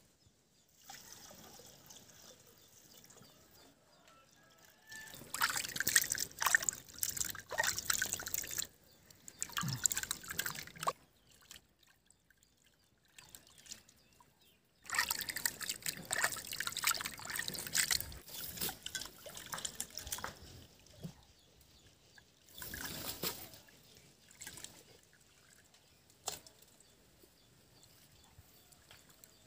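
Hands washing chopped offal in water in an aluminium kadai: water splashing and sloshing in bursts, with quieter pauses between.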